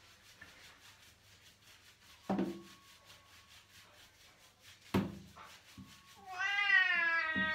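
Wet domestic cat being bathed, giving one long drawn-out meow that starts about six seconds in, with a short sound about two seconds in and a soft knock near the five-second mark.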